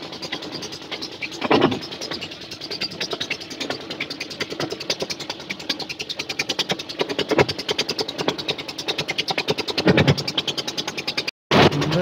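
Boat engine running with a fast, even chugging, with a few louder knocks over it. The sound drops out for a moment near the end.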